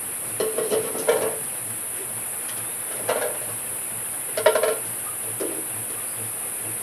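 Steady high-pitched drone of insects such as crickets or cicadas, with a few brief mid-pitched sounds about a second, three and four and a half seconds in.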